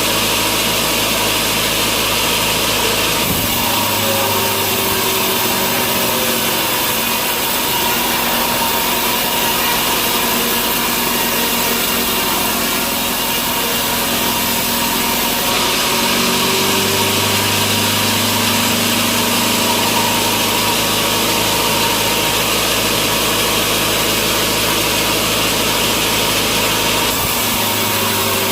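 Sawmill saw cutting lengthwise through a large log, running steadily throughout. A low motor hum beneath it stops about three seconds in and comes back a little past halfway.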